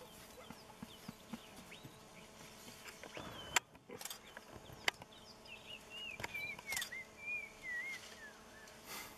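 Quiet bush ambience: faint insect buzzing throughout, a bird's wavering, warbling phrase in the second half, and a few sharp clicks.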